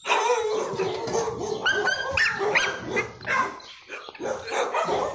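American Pit Bull Terrier puppies play-fighting and tugging over a toy, giving a quick run of small barks and whines.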